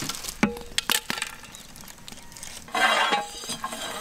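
Whole spices tipped from a wooden board into a large dry metal pot, landing as a few sharp clicks in the first second. About three seconds in, a metal ladle scrapes and stirs them around the bottom of the pot.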